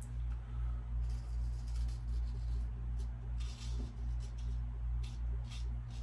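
Steady low background hum, with a few faint, short scratchy sounds around the middle and near the end.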